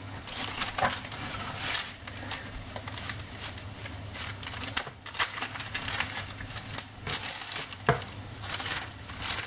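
Baking paper crinkling and rustling as a plastic dough scraper and hands press and scrape a crumbly cheese-and-egg dough across it on a baking tray, in irregular short strokes.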